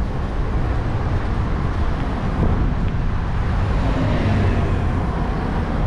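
City road traffic heard from a moving bicycle: a steady noisy rumble, heavy in the low end as wind hits the microphone, with cars going by, swelling slightly about four seconds in.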